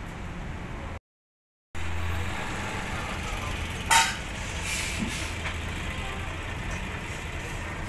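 Steady low hum of a vehicle engine idling in the workshop. It cuts out briefly about a second in, and a single sharp metallic clank comes about four seconds in.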